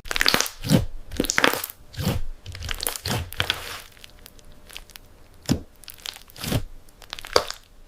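Thick, glossy slime being stretched and squeezed by hand, giving a run of irregular crackles and pops that are busy in the first half and thin out to a few separate pops in the second half.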